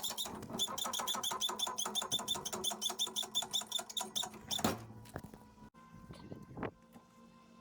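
Ratchet wrench clicking in a fast, even run, about seven clicks a second, as a fastener is turned during brake disassembly. It stops with a single knock about four and a half seconds in.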